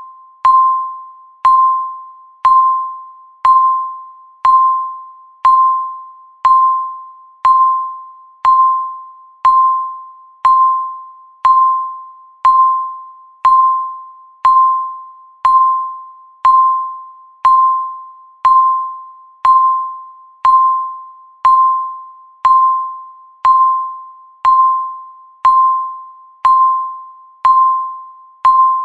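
Countdown timer's electronic tick: a short pinging beep once a second, each a sharp click that rings out briefly on one clear tone.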